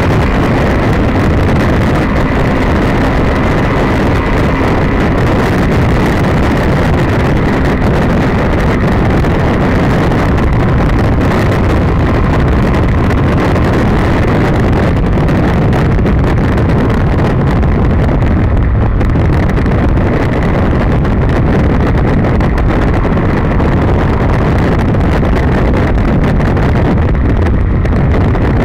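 Honda VFR800F's V4 engine running steadily at road speed, under heavy wind rush on the onboard camera's microphone.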